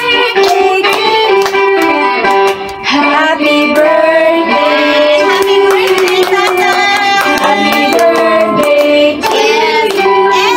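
A song with a sung melody over steady percussion, played as background music.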